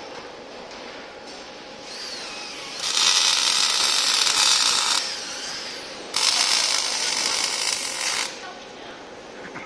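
Automatic welding machine's arc hissing and crackling in two welds of about two seconds each, each starting and stopping abruptly. Between the welds, the servo drive moving the torch whines, rising and falling.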